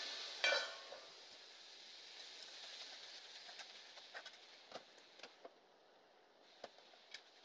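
Faint sizzling of onions and tomatoes frying in a metal kadai, with a sharp clatter about half a second in. Scattered light metallic clicks follow as the spoon stirs and the steel lid goes onto the pan.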